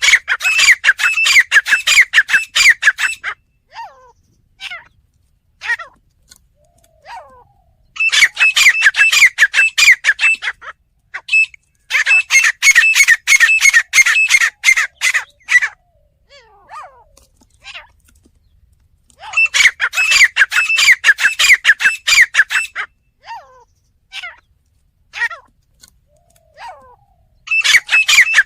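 Teetar (francolin) calling: loud runs of rapid repeated high notes, each run lasting about three seconds, five runs in all, with single short call notes in between.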